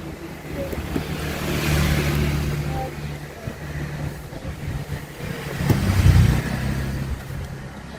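Motor vehicle engine hum that swells and fades twice, like vehicles passing, with a few light clicks of handling.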